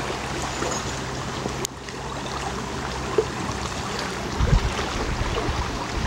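Outdoor noise of wind on the microphone over moving water, with a faint low hum. There is a sudden break about a second and a half in, and a few low thumps of wind buffeting or handling just after four seconds.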